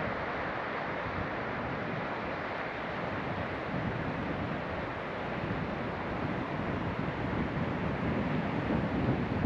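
Steady outdoor rushing noise, with wind buffeting the microphone in low, uneven gusts near the end.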